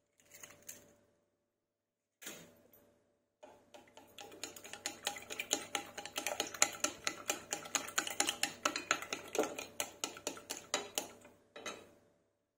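Eggs being beaten in a bowl for scrambled eggs: a utensil strikes the side of the bowl in a long run of quick, even clicks, several a second. A few short knocks come first.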